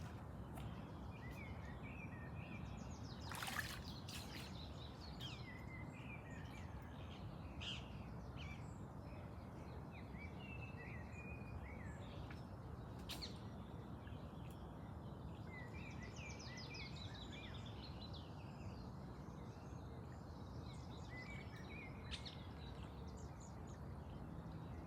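Small birds chirping and singing on and off over a steady outdoor background hiss, with a couple of brief knocks about three and thirteen seconds in.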